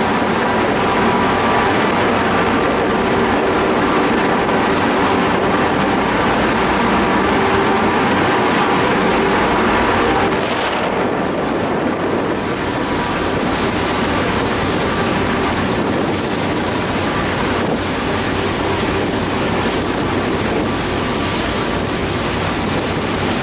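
Car ferry's engines running with a steady machine drone over wind and water noise. About ten seconds in the sound changes, the middle tones fading and the low rumble growing.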